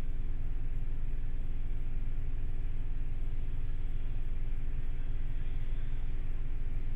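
City bus engine idling steadily, a low rumble heard from inside the passenger cabin while the bus stands still.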